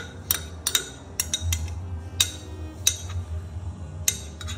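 A small metal spoon scraping and clinking against a glass jar, knocking out thick sourdough starter into a stainless steel bowl: about a dozen sharp, irregular clinks.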